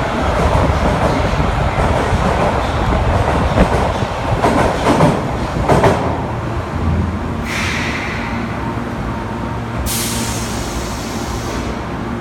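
Osaka Metro 10A series subway train rumbling along the platform and easing down, with wheel and rail clatter. Then a short hiss of compressed air, and a sudden loud hiss about ten seconds in that fades away, typical of the air brakes as the train comes to a stand.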